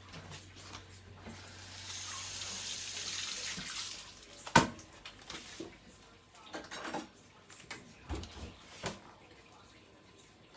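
Kitchen tap running for about two seconds, then one sharp knock, followed by several lighter knocks and clicks of kitchen handling.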